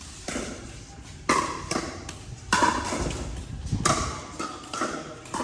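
Pickleball rally: paddles hitting a hard plastic ball in a string of sharp, ringing pops roughly every second, with lighter taps between them, echoing in a large hall.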